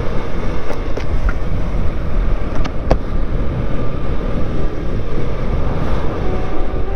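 Riding noise from a 50 cc Yamaha Gear scooter: wind rushing over the camera mixed with the small engine running and road rumble, a steady low roar. A few short clicks or knocks stand out about one and three seconds in.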